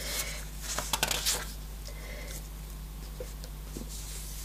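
Paper rustling and sliding as a sheet of grid paper and a book page are handled on a table, a few crisp strokes in the first second and a half, then only faint touches.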